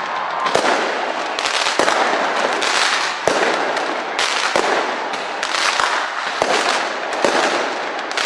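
A fireworks display going off: continuous crackling and popping with many sharp bangs, several a second at times.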